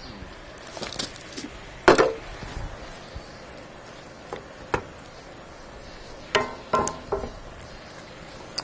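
A spoon knocking and scraping against a cast iron pot as baked beans are stirred: a scattering of short knocks, the loudest about two seconds in, and a cluster of three more a little past six seconds.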